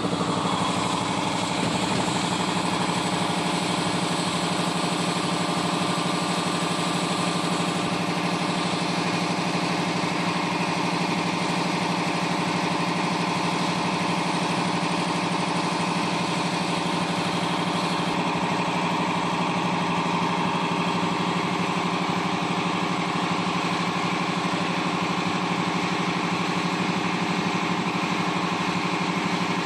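1325 CNC router's spindle running and routing a sheet of particleboard: a loud, steady machine whine with cutting noise, coming on suddenly and holding without a break.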